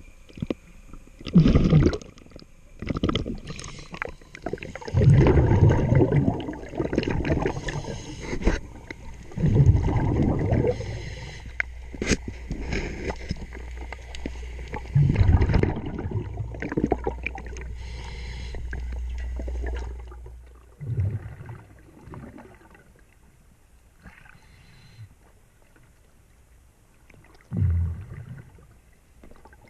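Scuba diver breathing underwater through a regulator: exhaled bubbles burst out with a low gurgling rumble every few seconds, with hissing between them. A sharp tap comes about twelve seconds in, and a low steady hum runs for several seconds in the middle.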